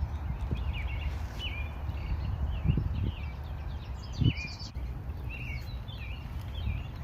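Several songbirds chirping, short quick chirps repeating throughout, over a steady low rumble, with two dull thumps, the first near the middle and the second a little later.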